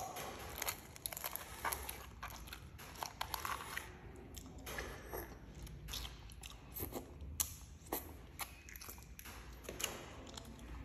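A person chewing and biting crunchy food: an irregular run of crisp crunches and clicks.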